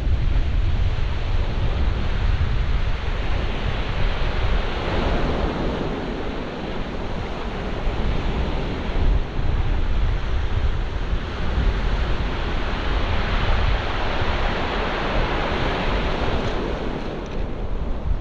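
Sea surf breaking and washing up a shingle beach, swelling and easing as each wave comes in, with wind buffeting the microphone as a low rumble underneath.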